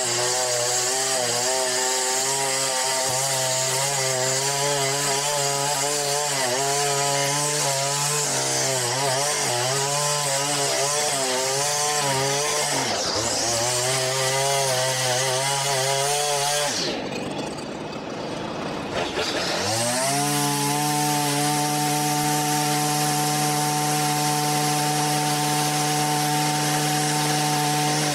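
Stihl two-stroke grass trimmer running, its engine pitch wavering as the line cuts along the path edge. A little past halfway it eases down to idle for a couple of seconds, then revs back up and holds a steady high speed.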